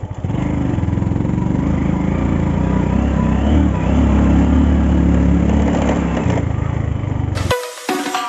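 Motorcycle engine running at a steady speed while riding. It cuts off abruptly near the end, and music begins.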